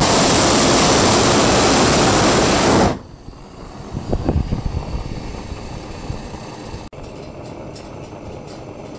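Hot-air balloon propane burner firing: a loud, steady rushing blast that cuts off abruptly after about three seconds, leaving a much quieter background.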